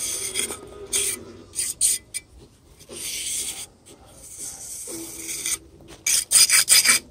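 A small hand trowel scraping and carving a crack into a fake-rock texture coat: a series of gritty scraping strokes that quicken into rapid short strokes near the end.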